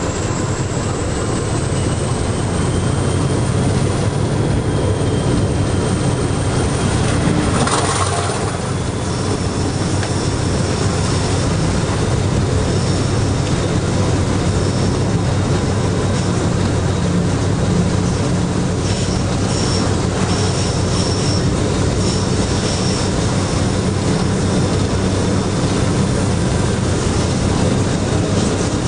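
Class 50 diesel locomotive's English Electric 16CSVT V16 engine running steadily under power, heard from inside the driving cab together with the rumble of wheels on rail and a high whine. From about a third of the way in come intermittent high-pitched squeals, the wheels squealing on the curving line.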